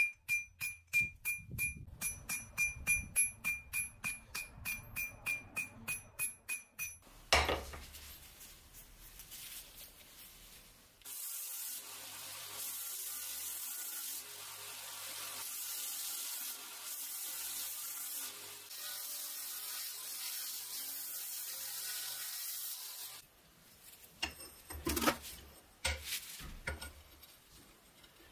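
Hammer blows on red-hot truck leaf-spring steel on an anvil, about three a second, each with a ringing note from the anvil. About eleven seconds in, a belt grinder hisses steadily against the steel bar for about twelve seconds, and a few sharp metal clinks follow near the end.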